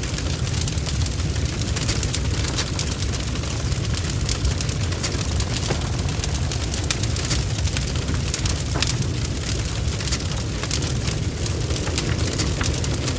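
Large blaze of a burning barn: a steady low rumble under dense, irregular crackling and spitting.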